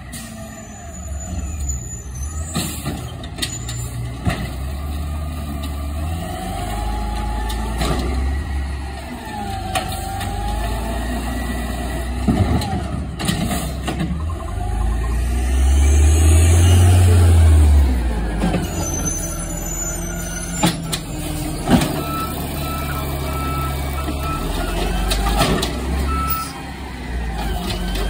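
Automated side-loader garbage truck's diesel engine running as the truck drives up and stops, with air-brake hisses and clanks. A short series of evenly spaced beeps sounds a little past the middle.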